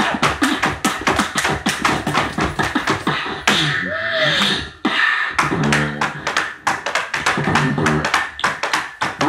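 Beatboxing into a microphone: fast clicks and snares, a vocal sweep that rises and falls about four seconds in, and hummed bass notes in the second half. Mixed in is tap dancing on a wooden board.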